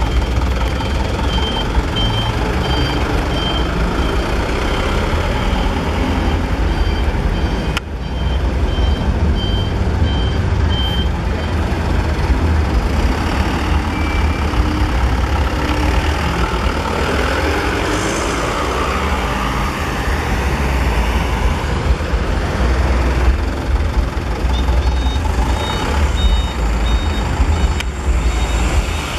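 Truck engines running in a low, steady rumble while a reversing alarm beeps in a row of short, evenly spaced high tones. The beeping stops about 11 s in, and a second, slightly higher-pitched series of beeps starts near the end.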